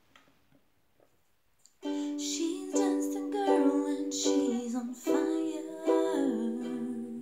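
Ukulele strummed in chords, starting about two seconds in after near quiet, with a woman singing along.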